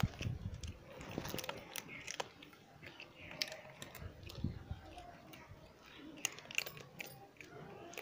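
Cats chewing and biting food, a run of irregular small crunches and mouth clicks.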